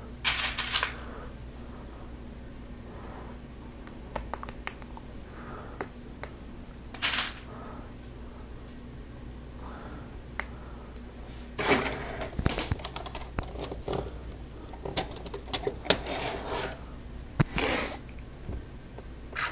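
Plastic Lego Technic parts clicking and rattling as they are handled and pinned together, with scattered sharp clicks and a few short bursts of rustling.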